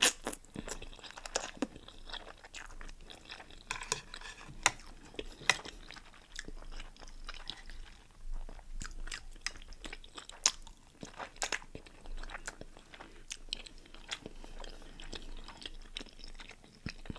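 A person chewing food close to the microphone, with wet mouth sounds and many irregular sharp clicks and crunches.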